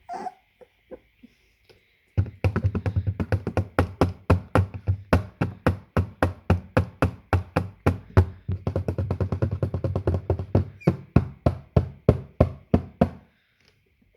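Rapid knocking on a hard surface, several blows a second, from about two seconds in until shortly before the end, speeding into quick drumming runs twice.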